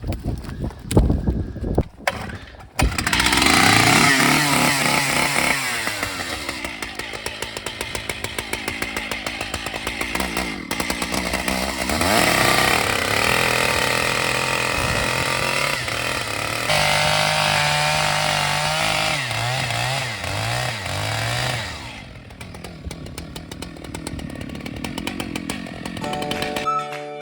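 Chainsaw running, its engine pitch rising and falling as it is revved and worked, after a few thumps about three seconds in. It drops away to a quieter level near the end.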